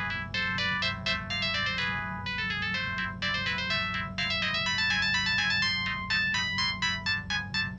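Samsung SGH-T108 mobile phone ringtone: a quick electronic melody of short, bright notes, several sounding at once, over a steady low hum.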